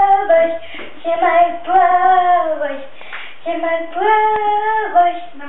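Singing in a high voice, with long held notes that slide up and down and short breaks between phrases.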